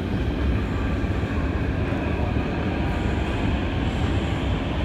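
Metro escalator running: a steady low rumble of the moving steps and machinery, with a faint hum above it.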